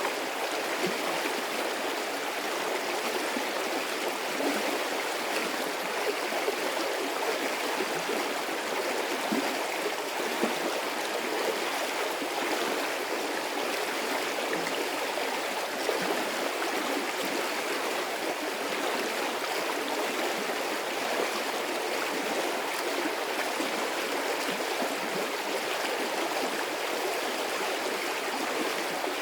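A medium-sized stream of water flowing steadily, a continuous rushing with small irregular splashes and gurgles.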